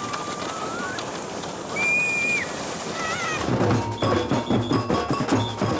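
Steady outdoor noise, then about three and a half seconds in, drums and percussion start playing with a strong, even beat.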